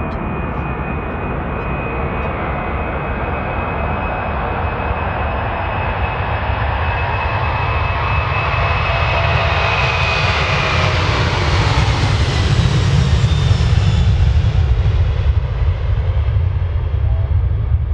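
Boeing jet airliner's turbofan engines at takeoff thrust as it rolls down the runway and past: a steady roar with a high whine that drops in pitch as it goes by. The rumble grows louder and is loudest a few seconds before the end.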